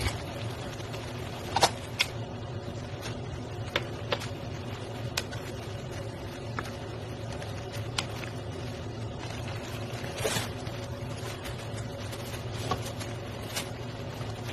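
Occasional knocks and scrapes of cooking utensils stirring vegetables in a stone-coated frying pan, over a steady low hum.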